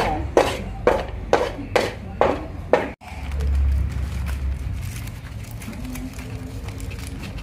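A series of seven sharp knocks at an even pace, about two a second, stopping abruptly about three seconds in; a brief low rumble follows.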